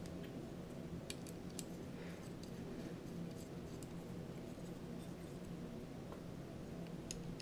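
Faint clicks and light taps of small metal screws and standoffs being handled and fitted to a carbon-fibre quadcopter frame. Most of the clicks come in the first second and a half, with one more near the end, over a low steady hum.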